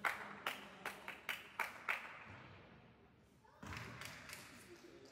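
About seven sharp smacks at uneven spacing in the first two seconds, echoing in a large gym hall, then a softer knock and a few faint taps about three and a half seconds in.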